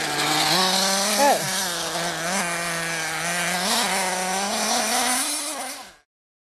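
Small engine of a radio-controlled off-road buggy buzzing as it laps a dirt track, its pitch rising and falling with the throttle, with a sharp swoop up and down about a second in. The sound cuts off suddenly about six seconds in.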